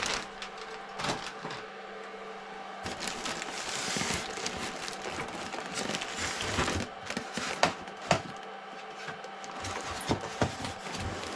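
Plastic wrapping and a cardboard box rustling and crinkling as a boxed RC boat hull is handled, with a few sharp knocks about eight and ten seconds in.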